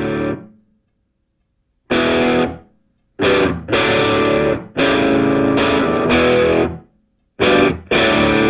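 Background music: a distorted electric guitar playing loud chord hits in a stop-start pattern, each cut off into short gaps of silence.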